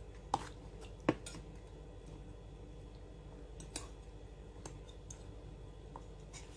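Plastic tableware and a utensil handled on a table: a few short sharp clicks and taps, the loudest two in the first second and another near four seconds, with fainter ticks between, over a steady low hum.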